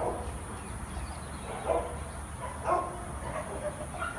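A dog barking, several short barks spread a second or more apart.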